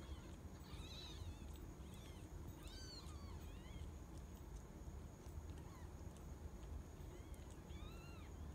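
Newborn kittens mewing: short, thin, high-pitched cries that rise and fall, in little clusters about a second in, around three seconds in and again near the end, over a faint low hum.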